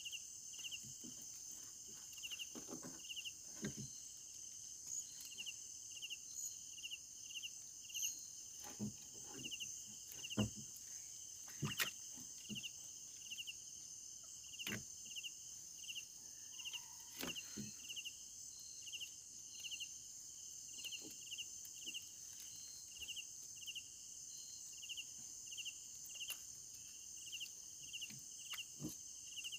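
Night insects or crickets calling: a steady high buzz with regular short chirps repeating throughout. Occasional sharp knocks and clicks, the loudest a little after ten and twelve seconds in.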